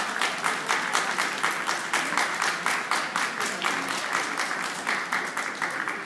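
Audience applauding, with one person clapping steadily close by at about three claps a second; the applause dies away near the end.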